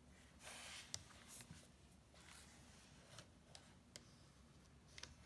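Faint handling noise from a plastic compact 35mm film camera, the Pentax PC-3000, being turned over in the hands: a soft rustle about half a second in, then scattered light clicks and taps of fingers and nails on the body.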